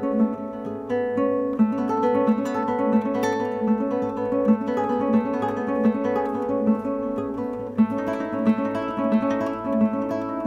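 Nylon-string classical guitar played solo, fingerpicked: a Christmassy instrumental with a melody picked over a steadily repeating low note.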